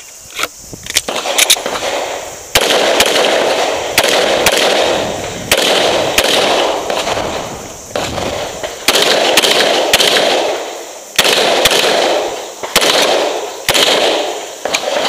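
A string of pistol shots fired in an IPSC stage run, mostly in quick pairs with short pauses between as the shooter moves to new targets. Each shot is sharp and loud and is followed by a fading ring.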